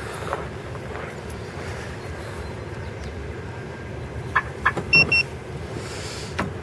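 A couple of short clicks, then two short electronic beeps from the car's alarm system as it is disarmed with the key fob, over a steady low background rumble.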